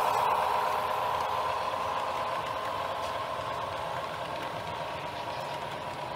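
HO-scale model train running past, the locomotive's steady engine hum fading as it moves away while the loaded log cars roll by on the track.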